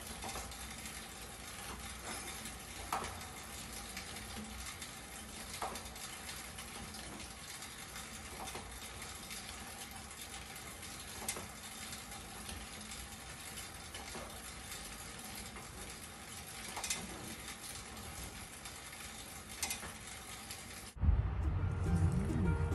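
Schwinn Airdyne fan exercise bike being pedaled steadily: the spinning fan wheel gives a steady whooshing air noise, with a light click about every three seconds. Near the end, loud music cuts in.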